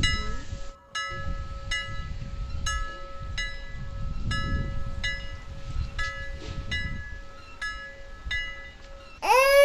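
Background music: a light plucked or chiming melody repeating a note about every second over a steady held tone, with a low rumble beneath. Near the end a loud wailing cry breaks in, its pitch rising and then falling.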